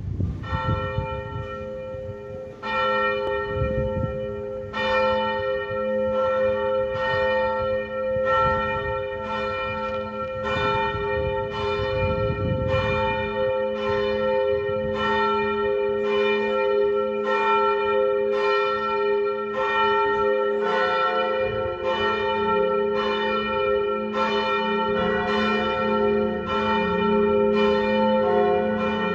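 Lund Cathedral's church bells ringing for High Mass: a swinging bell strikes about once a second, and a second bell joins in about twenty seconds in.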